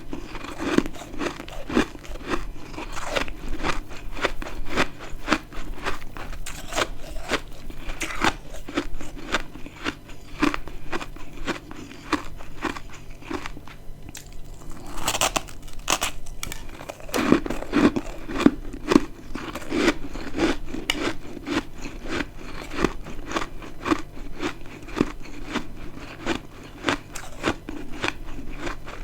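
Close-miked chewing of dry, crispy freezer frost chunks: a steady run of crisp crunches, a few a second, with a short lull a little under halfway through, broken by a sharp bite before the crunching goes on.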